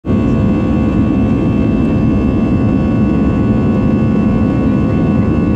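Jet airliner engines and airflow heard inside the passenger cabin during the climb after takeoff: a loud, steady low rumble with a thin steady whine above it.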